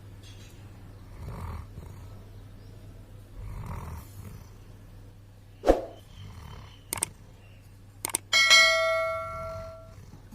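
Doberman snoring in slow, even breaths about every two and a half seconds. About halfway through come a few sharp clicks, then near the end a loud bell-like metallic ring that fades away over about a second and a half.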